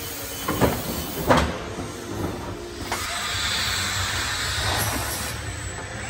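Automated packaging machinery running: two sharp clunks from the case erector in the first second and a half over a low machine hum, then, from about three seconds in, a steady hiss of compressed air from the robot cell's pneumatic suction gripper.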